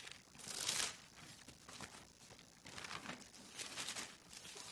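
Thin Bible pages rustling as they are turned by hand: a louder rustle about half a second in, then softer ones around three and four seconds in.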